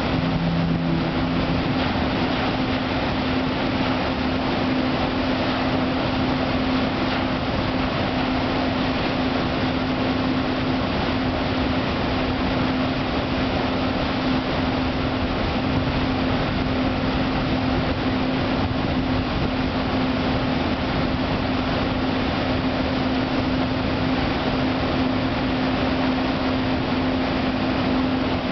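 Stena Explorer HSS superferry departing under power: the loud, steady rush of its gas-turbine-driven waterjets churning the water, with a constant engine hum. A brief lower tone sounds near the start.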